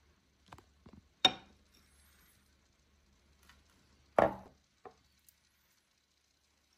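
Small glass bowl and dishes being handled and set down on a wooden table: a few light clinks and knocks, the two loudest about a second in and about four seconds in, the second ringing briefly.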